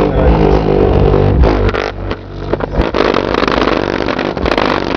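Bass-heavy music played loud through two repaired 10-inch Infinity car subwoofers, overloading the microphone; the deep bass drops back a little under two seconds in.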